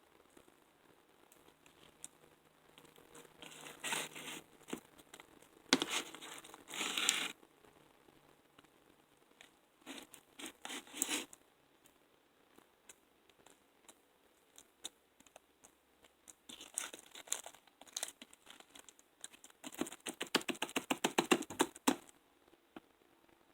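Slime being mixed and worked by hand: sticky tearing and crackling in several separate bursts, the last a quick run of clicking pops.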